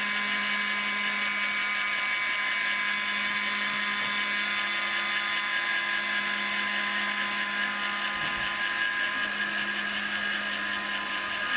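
Proxxon MF70 mini milling machine, converted to CNC, isolation-milling a printed circuit board: the small high-speed spindle motor runs with a steady, unbroken whine.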